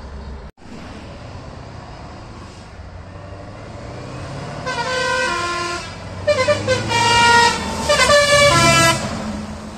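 Music air horn on a passing Scania truck playing a short tune of stepped notes, starting about halfway through and stopping near the end, over the low rumble of the truck's engine.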